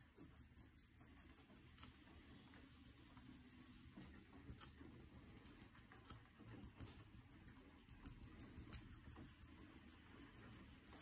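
Copic alcohol marker's nib scratching and dabbing on paper in quick, short strokes, several a second, faint.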